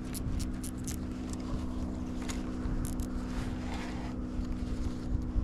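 Steady motor hum with an uneven low rumble beneath it, and a few short high clicks in the first second.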